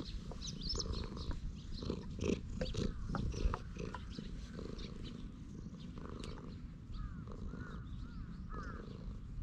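Tabby cat purring steadily while being stroked, a sign that it is content, with its fur rustling under the hand in the first few seconds.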